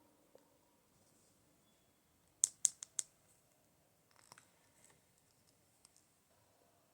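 Small hard clicks as toy pieces and packaging are handled: four sharp clicks in quick succession about two and a half seconds in, then a few fainter clicks and a light rustle.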